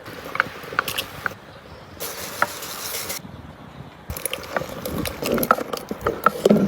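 A series of sharp clicks and short ringing clinks, irregular, with several abrupt changes in the background noise.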